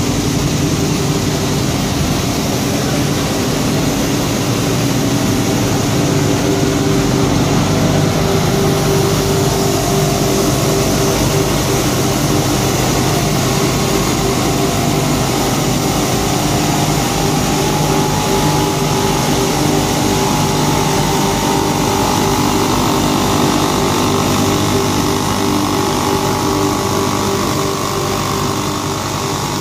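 Paper core polishing and grinding machine running: a steady mechanical drone of electric motors and grinding heads with several steady hum tones, and a higher whine that grows louder about two-thirds of the way through.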